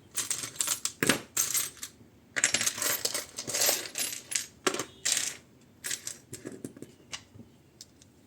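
Small metal gun parts and a tool clinking, clicking and scraping against each other in quick, irregular bursts, busiest between about two and five seconds in, then thinning to scattered clicks.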